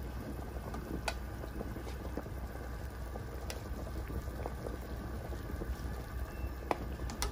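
A large pot of broth with meatballs at a hard boil, bubbling steadily. A ladle clinks lightly against the pot and bowl a few times.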